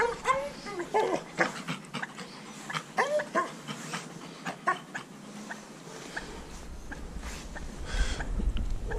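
Dog whining in short high calls that rise and fall, several in the first three and a half seconds, with light clicks and rustles in between. A low rumble comes in about six seconds in.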